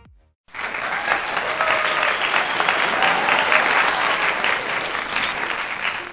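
Applause from a crowd, a dense run of clapping with faint voices in it, starting about half a second in and stopping just before the end.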